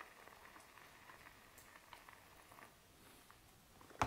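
Faint pouring of boiling water into a foil-lined pouch of freeze-dried chicken and rice. Soft, scattered crackles come from the freeze-dried food soaking up the hot water. A sharp click near the end.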